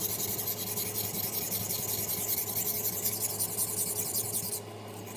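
Steel kitchen knife edge scraping back and forth on a wet water stone, a steady gritty rasp while a burr is raised on the edge. It stops about four and a half seconds in.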